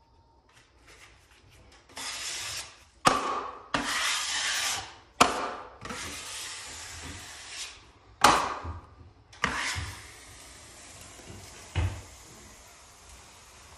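A wide drywall taping knife scraping and smoothing joint compound across a drywall wall in about half a dozen long strokes, each starting with a sharp scrape.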